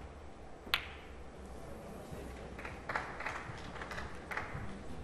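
Snooker balls clicking together in one sharp strike about a second in, then several softer clicks and knocks as the balls come to rest.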